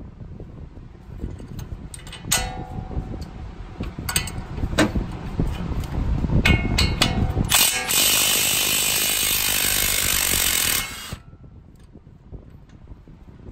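Metal tools clicking and knocking with ratcheting, then a loud steady noise for about three seconds that cuts off suddenly.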